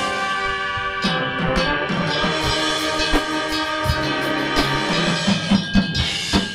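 High school marching band playing: sustained brass chords with drums underneath, a run of drum hits building in the last couple of seconds.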